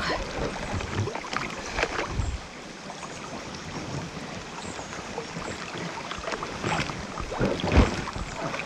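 Paddling a small boat on a river: water splashing and rushing, with several brief knocks and splashes from the paddles and hull, the loudest near the start and about two thirds of the way through.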